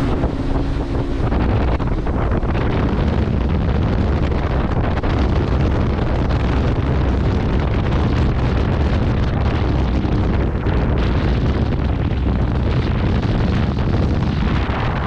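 Wind buffeting the microphone of a small boat under way, a steady heavy rush, with the sound of the moving boat and the water beneath it.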